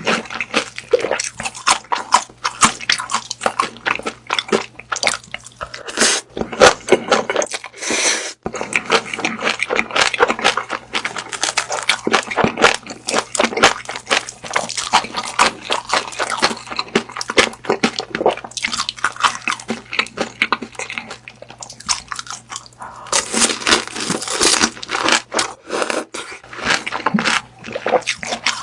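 Close-miked chewing of grilled beef sausage: a steady run of wet, crunchy bites and mouth sounds.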